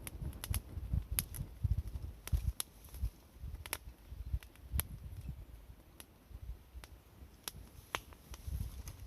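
Wood campfire crackling, the burning firewood giving off irregular sharp pops and snaps over a low uneven rumble.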